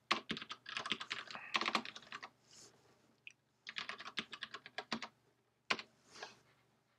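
Computer keyboard typing: two quick runs of keystrokes with a short pause between them, then a single keystroke near the end.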